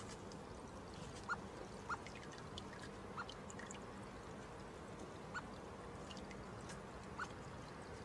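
Water trickling steadily from a bird-bath fountain spout into a stone basin, with short high plinks of water drops about five times, the loudest just over a second in.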